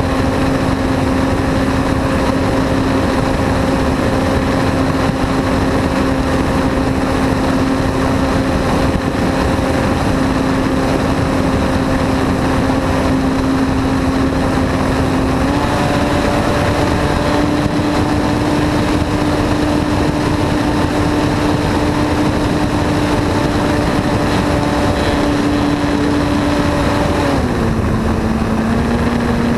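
Aeroworks Extra 260 model aircraft's motor and propeller running steadily in flight, heard from on board over a steady rush of wind noise. The pitch steps up slightly about halfway through, then drops as the throttle comes back near the end.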